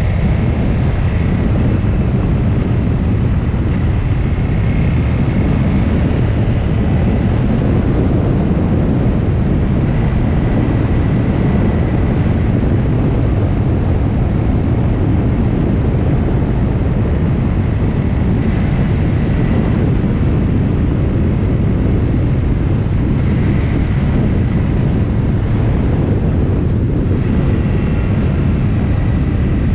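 Steady, loud wind rumble buffeting the microphone of a camera travelling at speed down a mountain road, with a faint high whine that comes and goes.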